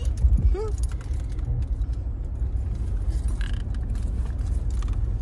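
Steady low rumble of a car's engine and tyres heard from inside the cabin as the car rolls slowly along.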